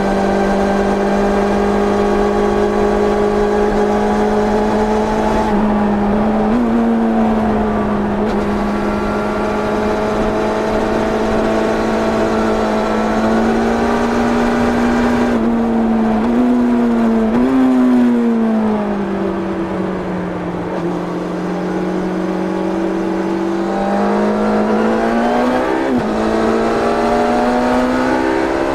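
1990 Yamaha FZR 600 inline-four engine running hard under the rider, heard onboard. Its pitch holds fairly steady, jumps briefly a few times, sags about two thirds in and climbs again near the end.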